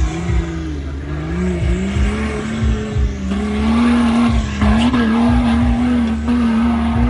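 Off-road 4x4's engine working hard under load, its pitch climbing over the first three seconds and then held high and steady. Repeated short low thumps run underneath.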